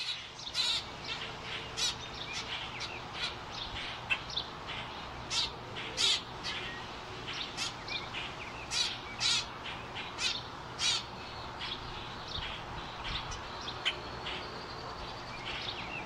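Fledgling blackbirds calling, short high chirps repeated in irregular runs of a few a second, the calls of young birds begging their parents for food.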